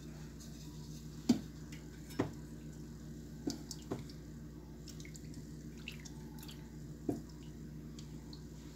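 Olive oil heating in a nonstick pan, with about five sharp pops or ticks, the loudest a little over a second in, over a steady low hum.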